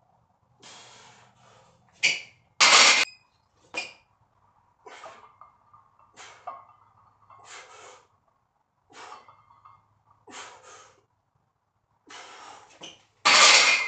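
A weightlifter breathing hard while pressing a heavy barbell overhead: a string of sharp, forceful breaths and gasps, the loudest about three seconds in and another just before the end.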